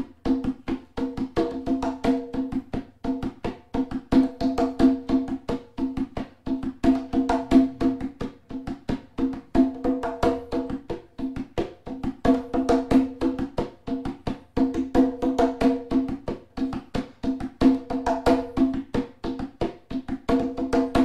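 Conga drum played by hand in the cumbia tambor alegre rhythm: a looping pattern of an eighth note and two sixteenths, repeated, then four sixteenths. Open tones on the head mix with muted strokes made by one hand pressing the head while the other keeps playing.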